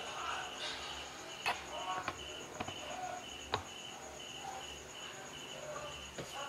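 Cricket chirping in steady, evenly spaced pulses throughout, with a few sharp clicks from small parts and wires being handled on a wooden workbench in the first half.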